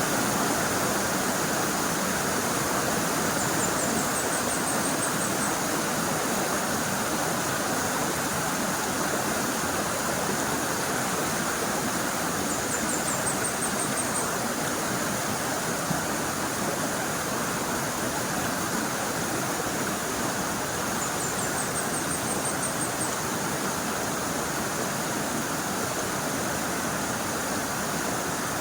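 Steady rushing of a river's flowing water. A faint, short, high trill sounds three times, evenly spaced.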